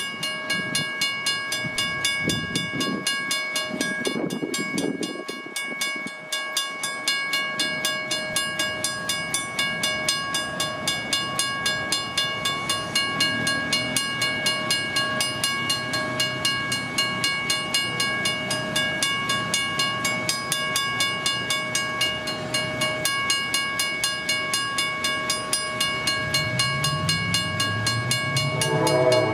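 Western-Cullen-Hayes first-generation mechanical crossing bell ringing in a steady, rapid rhythm while the crossing is activated for an approaching train. A low rumble builds near the end.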